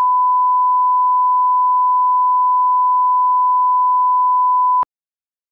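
1 kHz line-up test tone of the kind played with broadcast colour bars: one steady, unchanging beep at a single pitch that cuts off suddenly a little under five seconds in.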